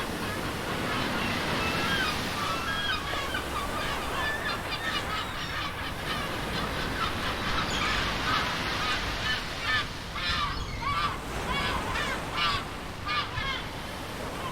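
A flock of birds calling, many short honking calls overlapping, over the steady wash of ocean waves. In the second half the calls come as separate quick bursts, several a second.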